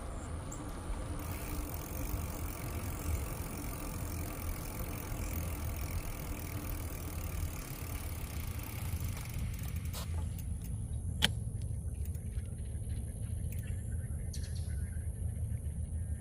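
Steady low rumble of a bicycle ride along a trail, with a sharp click about eleven seconds in.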